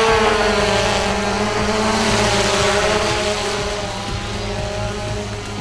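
Xiro Xplorer quadcopter's motors and propellers whining in flight, a steady multi-tone drone whose pitch bends slightly near the start and which slowly fades as the craft moves off.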